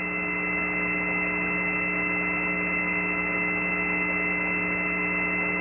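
Steady electrical hum and hiss on a narrow-band mission-control voice loop between callouts: a buzzy hum made of several steady tones, unchanging throughout.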